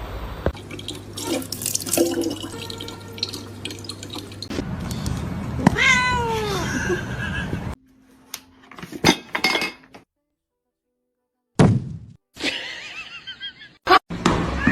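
A cat meowing, one drawn-out call falling in pitch about six seconds in, among short stretches of noisy household sound that stop abruptly, with a second of silence near the middle.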